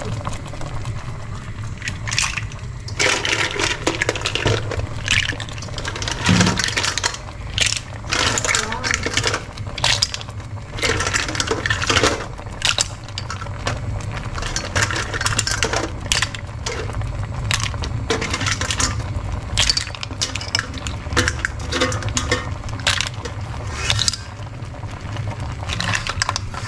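Repeated metallic clinks and clatter of kitchen utensils against a cooking pan, over a steady low hum.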